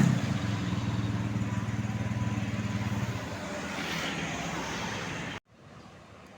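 Road traffic: a vehicle engine running steadily, easing off after about three seconds. The sound cuts off abruptly about five seconds in, leaving faint background noise.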